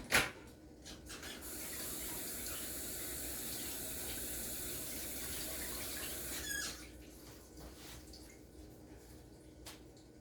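A sharp knock, then a kitchen faucet running into the sink for about five seconds before it is shut off with a brief squeak.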